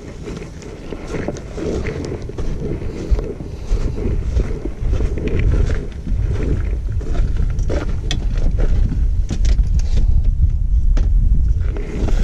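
Wind buffeting the microphone: a low rumble that grows stronger about four seconds in, with scattered clicks and rustles from gear being handled.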